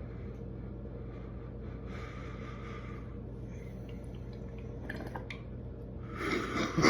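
A hit from a glass water bong: faint bubbling and inhaling over a steady low hum, with a few light clicks about five seconds in. Coughing starts near the end.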